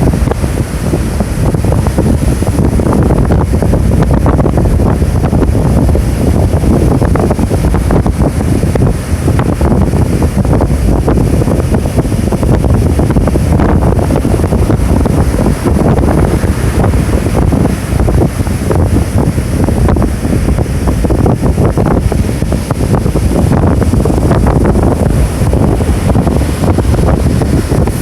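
Strong typhoon wind buffeting the microphone over the steady wash of surf on the shore.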